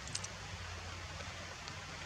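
Steady background hiss with a low hum underneath, and one short, faint click just after the start.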